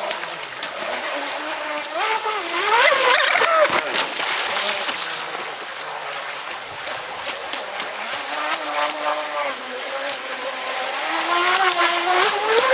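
Radio-controlled catamaran speedboat's brushless electric motor whining, its pitch rising and falling with the throttle, loudest about two seconds in and again near the end, over a steady hiss.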